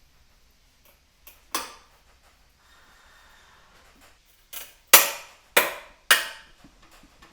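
Hammer blows on the steel yoke of a Ford Transit driveshaft while knocking out its worn rear universal-joint cross: one ringing strike, then about three seconds later three more in quick succession, with lighter taps before them.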